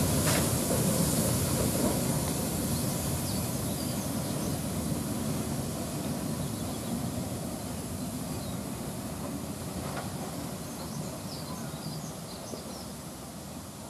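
ČSD class 555.0 steam locomotive rolling slowly past and moving away, a steady rumble from its running gear fading as it goes. A sharp knock at the start and another about ten seconds in.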